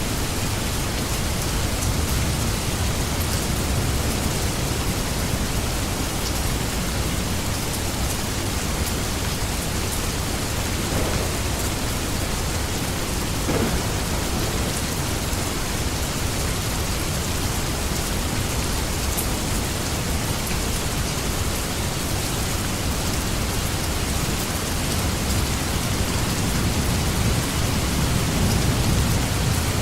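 Steady heavy rain, a dense even hiss of drops, over a deep low rumble that swells slightly near the end.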